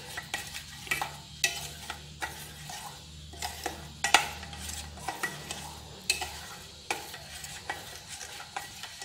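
Metal spoon stirring thin beaten-egg batter in a stainless steel bowl: a soft liquid swishing with irregular light clinks of the spoon against the bowl.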